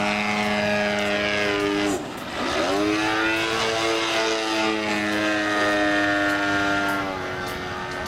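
Engine and propeller of a large radio-controlled Extra 330SC aerobatic model plane running hard. About two seconds in it is throttled back sharply, then opened up again. It holds a steady high note and eases off a little near the end.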